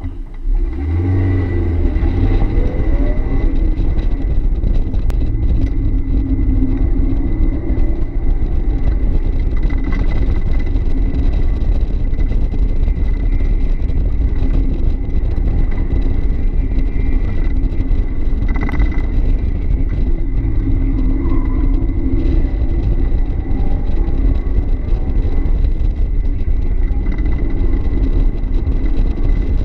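A 1990 Mazda Miata's 1.6-litre four-cylinder engine driven hard on an autocross run, heard from inside the open cockpit. It launches about a second in, then runs loud and steady, its pitch rising and falling with the throttle through the course.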